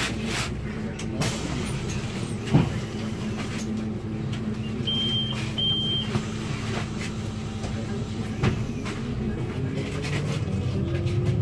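Inside a Solaris Urbino 8.9LE city bus standing still with its diesel engine idling, with scattered knocks and rattles and two short high beeps about halfway through. Near the end the engine note starts to rise as the bus moves off.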